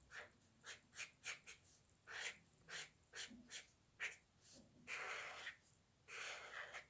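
Faint scratching of a drawing tool on a drawing surface: quick short strokes, several a second, then two longer strokes near the end.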